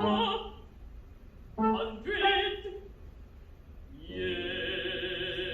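Operatic singing voice: two short sung phrases with pauses between them, then a long held note with vibrato near the end.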